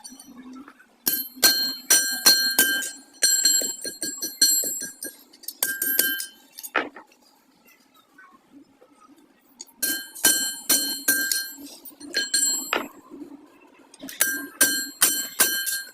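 Rapid hammer blows on ringing steel, in bursts of several strikes each, separated by pauses of a second or more.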